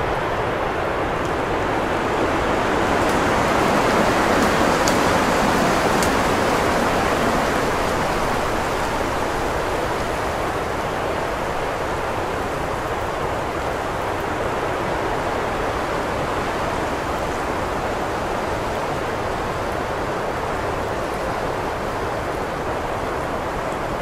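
Strong wind blowing steadily, swelling to a gust about four seconds in and then easing back.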